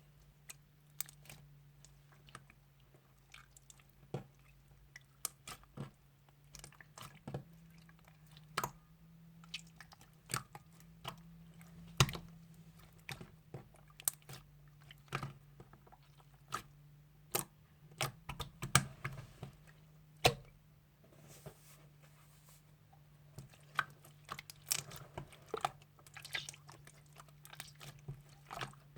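Clear slime being squeezed, folded and pressed by hand, giving irregular sharp clicks and pops, some in quick runs.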